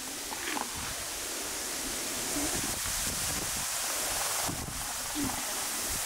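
Steady outdoor ambience: an even, high-pitched hiss from the surrounding forest valley, with a few faint distant voices.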